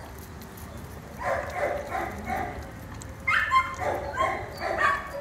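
A dog barking in short runs off-camera: a few barks about a second in, then a louder run from about three seconds in.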